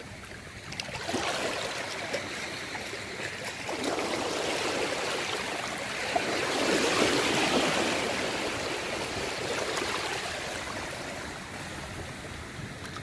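Small sea waves lapping and washing over shallow water at the shoreline, swelling and easing several times, loudest a little past halfway.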